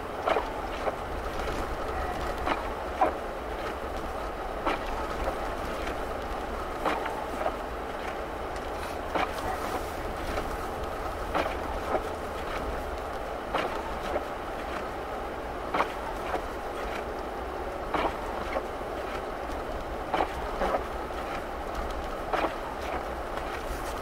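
Inside the cabin of a Mercury Grand Marquis on a snow-covered road: a steady hum of the V8 and tyres, with the windshield wipers knocking about every two seconds.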